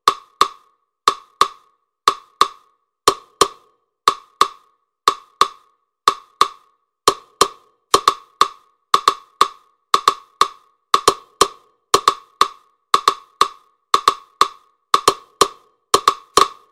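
Sharp, dry percussion clicks in a steady repeating rhythm, mostly in pairs about once a second, growing busier with three clicks per beat from about halfway through.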